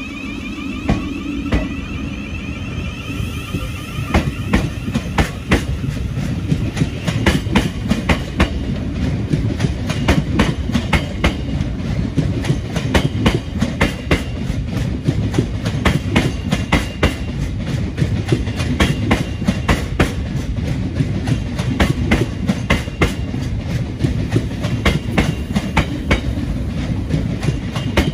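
Thameslink Class 700 electric multiple unit running slowly past at close range, its wheels clicking over rail joints and points above a steady low rumble.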